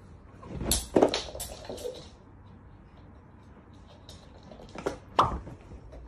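A few sharp knocks and clattering bumps: a cluster about a second in, then two more near five seconds in.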